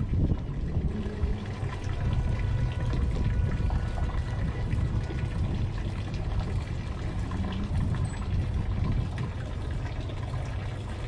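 Harbour water lapping and trickling against moored boat hulls, over a steady low rumble.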